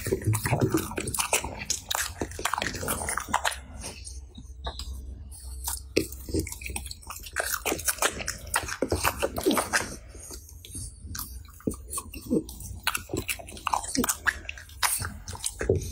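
French bulldog chewing and eating banana slices fed from a fork: a continuous run of irregular chewing and biting clicks.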